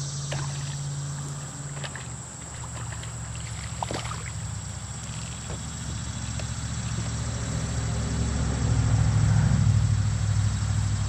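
Steady low engine drone of a tractor working a brush hog (rotary mower), swelling louder about eight seconds in and easing off near the end. A few light clicks from handling the fish in the first four seconds.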